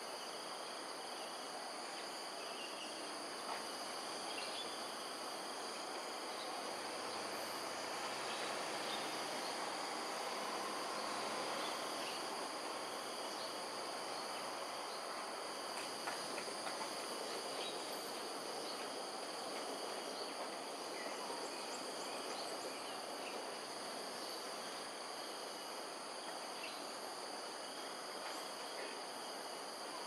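Steady, high-pitched insect chorus over a constant background hiss, with a few faint ticks.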